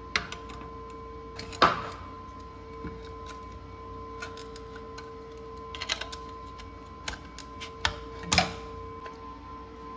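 Clicks and knocks of a Nissan 240SX clutch pedal assembly being handled and fitted back together, its metal pedal arm and steel bracket clacking against each other. A handful of sharp knocks come at uneven intervals: the loudest about a second and a half in, then a cluster around six seconds and two more near the end.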